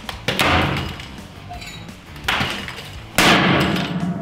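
An axe smashing into a laptop on a wooden table: sharp crashing blows with cracking plastic and glass, the loudest about three seconds in.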